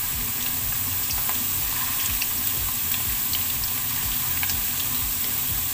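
Cubed potatoes and carrots frying in oil in a wok: a steady sizzle with scattered small crackles.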